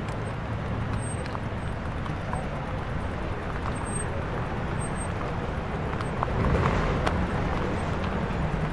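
City street noise heard from a moving bicycle: a steady rumble of traffic and rolling, with a few light clicks and a swell in loudness about six and a half seconds in.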